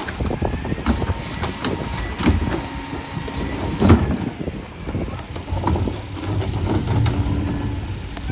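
McNeilus rear-loader garbage truck's hydraulic cart tipper dumping a wheeled trash cart and lowering it, with repeated clanks and a loud knock about four seconds in. The truck's engine runs underneath, and a steady hydraulic hum comes in partway through.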